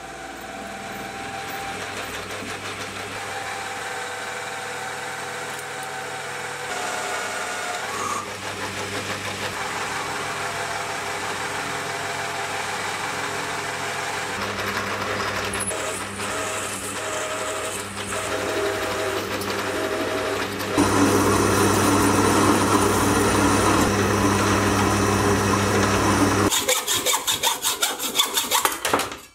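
Hafco AL250G metal lathe running while a carbide-insert tool turns down the outside of a steel bar, with the steady motor and spindle noise under the cut; the cut grows louder about two-thirds of the way through. Near the end a hacksaw cuts through the steel part held in the chuck in a run of quick, even strokes.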